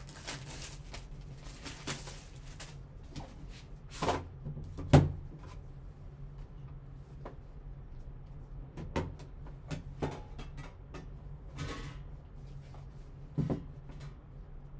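Handling a sealed trading-card box: plastic shrink wrap crinkling as it is pulled off, then a run of knocks and taps as the cardboard lid is lifted and the packaging inside handled. The loudest knock comes about five seconds in.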